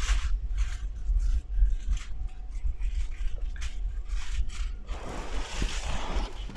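Irregular light rustles and scrapes over a steady low rumble, with a longer rustle about five seconds in.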